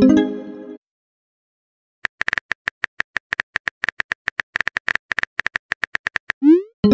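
Texting-app sound effects. First a short pitched pop as a message sends, then a second of silence. Next comes rapid keyboard-click typing sounds, several per second, for about four seconds. Near the end a rising swoosh and pop marks the next message sending.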